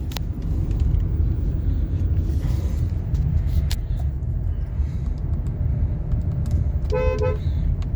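Kia Carens running with a steady low rumble. A brief steady higher tone sounds near the end.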